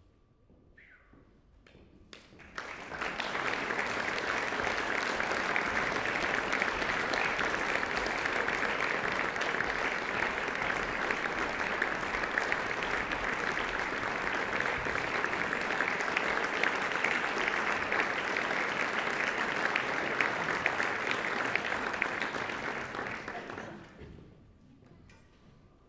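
Audience applause: a dense, steady clapping that starts about two seconds in, holds for about twenty seconds and dies away near the end.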